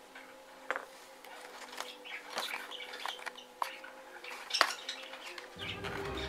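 Cardboard gift box being opened and handled: scattered clicks, taps and light rustling of the packaging. Background music comes in near the end.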